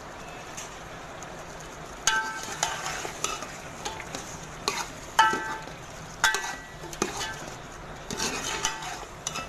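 Metal ladle stirring raw chicken pieces frying in masala in a metal pot, with a steady sizzle underneath. From about two seconds in the ladle knocks and scrapes against the pot eight or nine times at irregular intervals, each knock ringing briefly.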